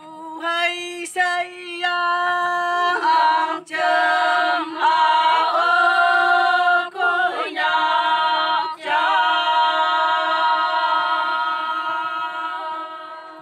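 A group of Konyak women singing a Konyak-language song a cappella, in long held notes, with a steady lower note sustained beneath the moving tune. The singing fades out near the end.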